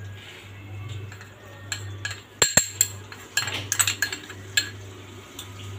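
Metal spoon clinking and scraping against a glass bowl as cornflour is tipped out of it into a steel mixing bowl: a few sharp clinks, the loudest pair about two and a half seconds in, then a run of lighter taps.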